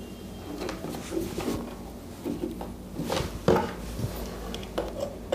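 Handling noise as hands work on a cooler-fan motor and its wiring on a wooden table: a few scattered light knocks and rubs, with a faint low steady background.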